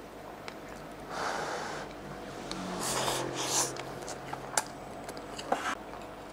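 A man eating from a bowl with chopsticks: breaths through the nose, a low hummed "mm" held for over a second, and a couple of sharp clicks of chopsticks against the bowl near the end.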